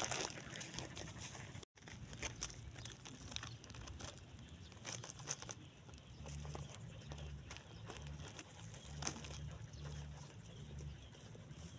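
A puppy eating out of a thin plastic bag: the bag crinkles and rustles as the dog's muzzle pushes into it, with small scattered clicks of chewing and licking.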